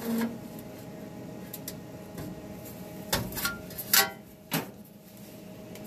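A few light metallic knocks and scrapes of a thin sheet-metal panel being handled and fitted against a van's body, with a short ringing clank about four seconds in.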